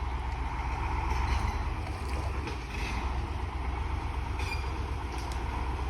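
KamAZ 6x6 truck's diesel engine running steadily with a deep low rumble, with a few faint squeaks and rattles over it.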